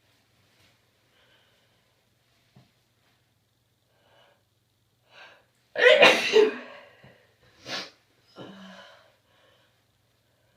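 A person with a head cold sneezing once, loudly, about six seconds in, after a short breath in. A sharp sniff and a brief voiced breath follow.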